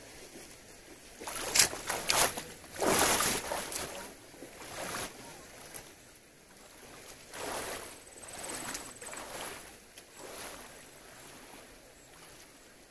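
Water splashing as a person wades through a shallow, flowing stream, in several uneven bursts that are loudest a few seconds in, over the faint steady rush of the current.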